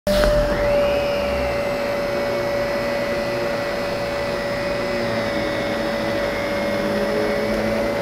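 Zero G F3D vacuum cleaner running on carpet, a steady motor whine over the rush of suction.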